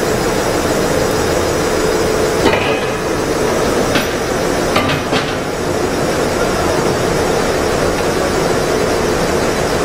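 TENZ TP-B-20L cosmetic powder mixer running, a steady machine hum with one constant tone as it churns pink powder in its stainless-steel trough. A few sharp clicks come about two and a half, four and five seconds in.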